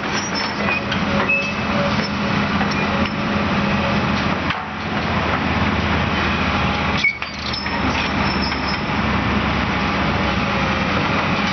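Heavy diesel engine running steadily, with a constant hum and mechanical clatter; the level dips briefly twice, about four and a half and seven seconds in.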